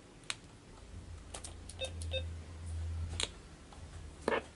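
Sharp clicks of wires and connectors being handled, with two short electronic beeps close together about two seconds in. A low hum runs through the middle, loudest from about one to three seconds in.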